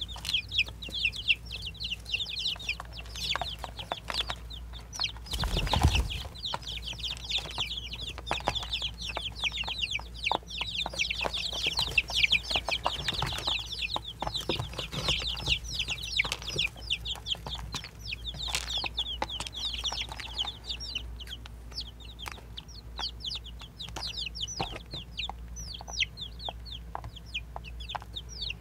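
Baby chicks peeping constantly, a dense stream of short, high, falling peeps. A low thump comes about six seconds in.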